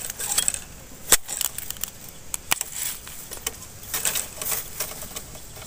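Metal digging blade chopping through the base of a bamboo shoot among dry bamboo litter: a few sharp knocks, the loudest about a second in, with rustling of dry leaves between them.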